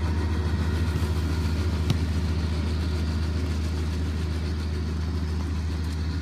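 A steady low mechanical hum with a fast, even pulse, like an idling engine. One short knock sounds about two seconds in.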